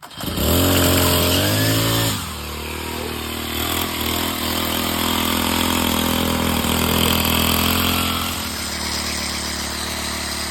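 Craftsman 29cc four-cycle string trimmer engine running: revved high for about two seconds, then dropping back to a steady, lower running speed. It runs now that the clogged fuel pump and primer lines have been cleaned out.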